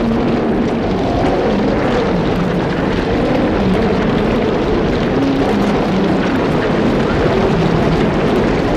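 Sound effect of a group of angry lions growling and roaring at once, a dense unbroken din with short pitched growls rising out of it every second or so.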